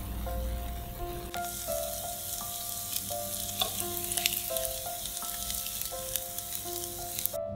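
Potato and chicken patties sizzling and crackling in oil in a nonstick frying pan, the sizzle growing louder about a second in. Light scrapes and taps of a spatula sound as the patties are lifted and turned. The sizzle cuts off near the end.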